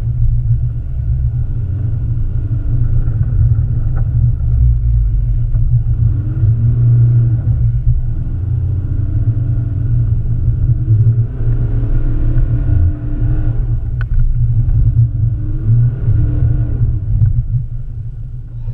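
BMW X1 xDrive18d's diesel engine running as the car drives over snow, its pitch rising and falling several times with the throttle over a heavy, steady low rumble.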